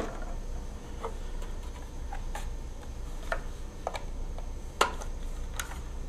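A handful of light, scattered clicks and taps as small plastic electronic parts, a relay board and a dialer case, are handled and set down on a tabletop, over a faint steady low hum.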